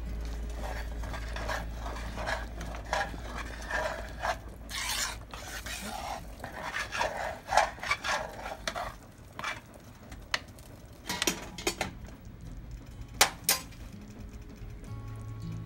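A spoon stirring thick Alfredo sauce in a metal saucepan as grated Parmesan is mixed in, scraping against the pan in irregular strokes for most of the time, then a few sharp knocks against the pan later on.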